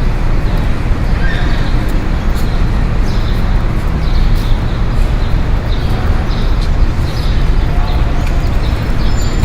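City street ambience: a steady rumble of passing traffic with indistinct voices and scattered sharp clicks.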